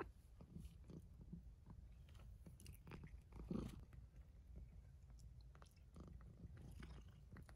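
Faint, irregular licking of a cat's tongue grooming fur and human hair: soft, quick rasps and clicks, one a little louder about three and a half seconds in.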